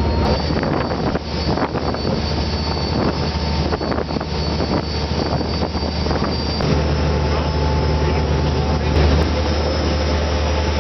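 Fishing boat's engine running steadily with a low hum, under a constant broad hiss.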